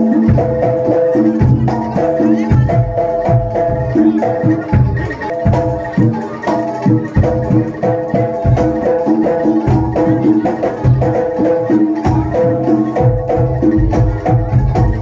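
Live Javanese jaranan gamelan music: metallophones ring out a short repeating melody over a steady beat of drum strokes.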